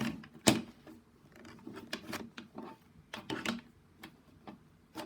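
Irregular plastic clicks and clacks of a Rubik's Cube being twisted, one sharp knock about half a second in and a run of smaller clicks in the middle.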